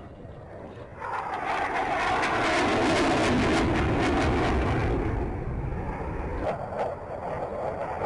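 T-50B jet aircraft flying past. The jet noise jumps up sharply about a second in, then drops in pitch as the aircraft go by, and eases off after about five seconds.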